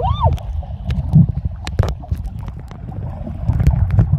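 Underwater sound picked up by a camera held beneath the sea surface over a reef: a steady muffled water rumble with many scattered sharp clicks and crackles. A brief squeak that rises and falls in pitch comes right at the start.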